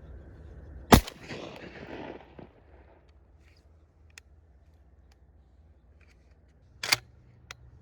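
Two shotgun blasts about six seconds apart, the first the louder, with a rolling report trailing off for a second or so after it.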